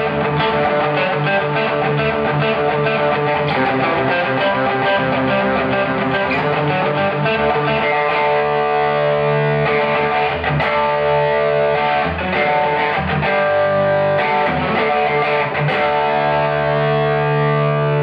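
Distorted electric guitar, a Fender Stratocaster, played through an amplifier with the Fender The Bends compressor pedal engaged. The chords and riffs run continuously at an even level, with notes held long in the second half.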